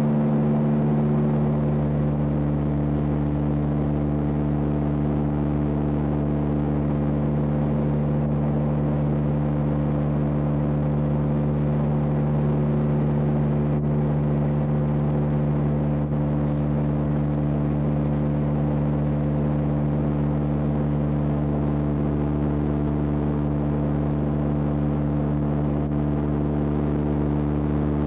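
Steady, unbroken drone of an airliner's engines heard inside the cabin in flight, several low hum tones over a rumble.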